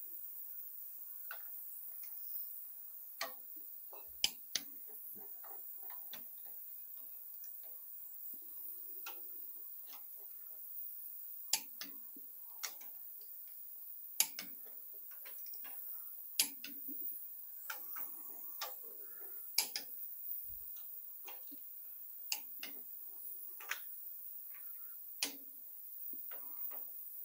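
Click-type torque wrench working the cylinder-head bolts of a Ford 302 V8, each sharp click the wrench breaking over as a bolt reaches its 50 ft-lb setting. The clicks come irregularly, about one every second or two, with fainter ratchet and handling clicks between them.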